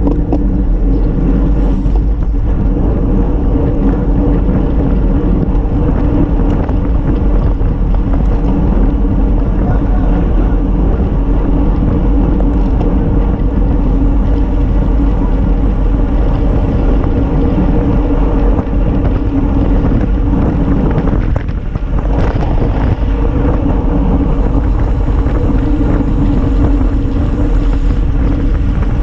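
Loud, steady wind rush and road noise on the microphone of an action camera mounted on a road bike's handlebars while riding at speed. There is a brief dip about three quarters of the way through.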